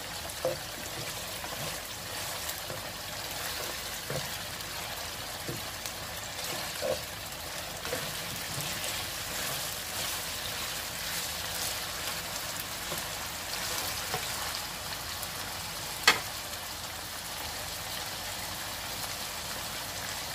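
Boneless chicken pieces frying in oil in a nonstick wok, a steady sizzle, with a plastic spatula scraping and knocking softly against the pan as they are stirred. One sharp knock stands out about three-quarters of the way through.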